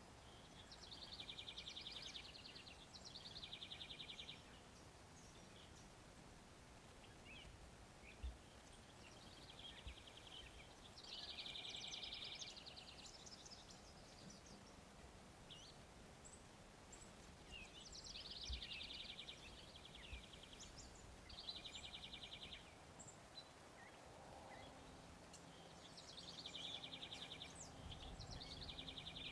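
A bird singing faintly: a repeated phrase of two short, high trills, heard four times, about every eight seconds.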